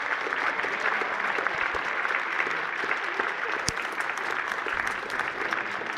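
Audience applauding at the end of a stage dance number: dense, steady clapping from many hands. A single sharp click stands out about two-thirds of the way through.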